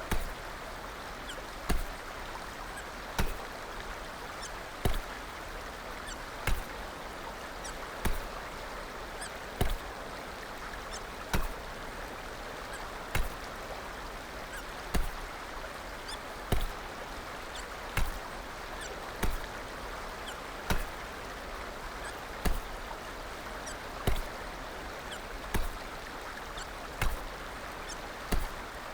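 Hiccups, a short sharp hic repeating steadily about once every one and a half seconds, over a steady hiss.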